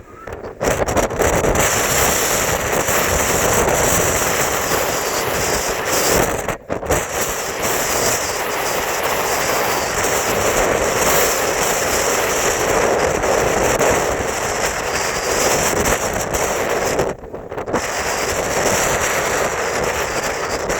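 Strong wind buffeting the microphone: a loud, dense rush that gusts in level and briefly drops away three times, near the start, about seven seconds in and about seventeen seconds in.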